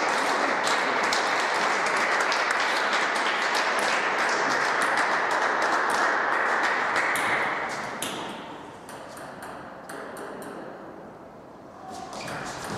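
Spectators clapping after a point in a table tennis match, a dense steady patter that thins out about eight seconds in and dies away.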